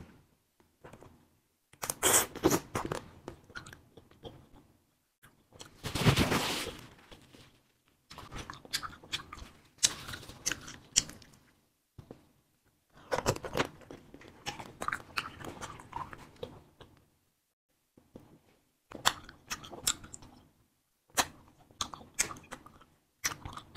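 Someone biting and chewing fruit-filled wax candy, whose pliable wax shell gives soft crunches and mouth sounds in irregular clusters with short pauses between.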